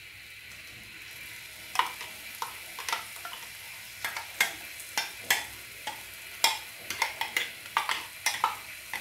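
Spatula scraping spinach puree off a plate into a pan of frying masala: quick, irregular scrapes and taps, starting about two seconds in, over a light sizzle.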